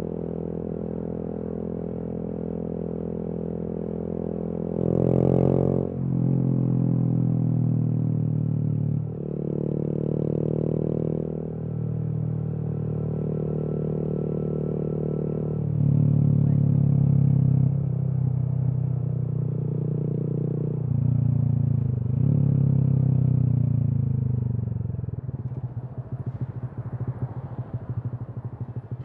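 Honda MSX/Grom 125's single-cylinder engine, through a Kemimoto aftermarket exhaust, pulling through the gears with the pitch breaking and stepping at each change. Near the end the engine note falls and fades as the bike rolls off.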